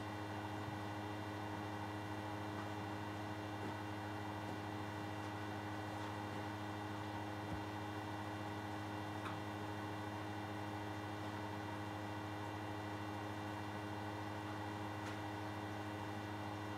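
Steady electrical mains hum on the recording, a fixed buzzy tone with no change, with a few faint ticks.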